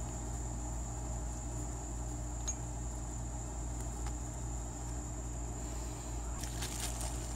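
Steady low hum with a thin, faint high whine over it, and a single faint click about two and a half seconds in.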